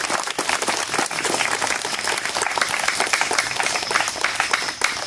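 Crowd applauding, a dense patter of many hands clapping together.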